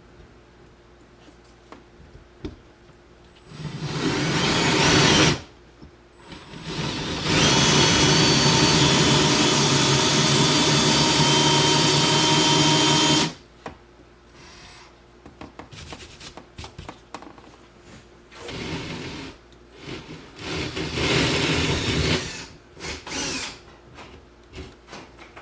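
Power drill running in bursts with a steady motor whine: one short run, then a long run of about six seconds, then several short runs near the end.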